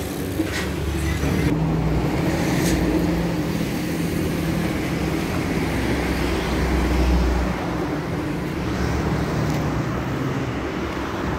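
Road traffic: a steady low rumble of vehicle engines that is louder for the first several seconds and drops off about seven and a half seconds in.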